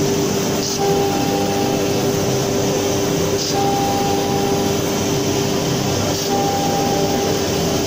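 CNC router spindle running with the bit cutting into a wood board: a steady machine tone over cutting noise, with a higher tone that comes in three times, about every two and a half to three seconds, as the bit circles the pocket.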